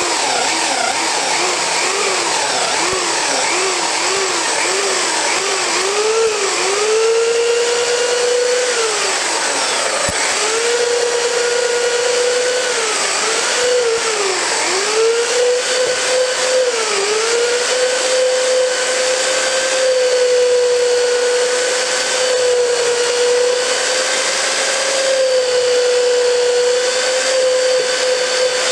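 Electric drill with a paddle mixer stirring dry clay-sand stove mortar mix into water in a bucket. The motor whine rises and falls quickly at first and dips a few times, then runs at a steady pitch through the second half.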